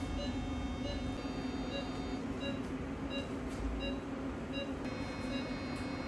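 Steady hum of catheterization-lab equipment, with a patient monitor beeping about once every two-thirds of a second in time with the pulse.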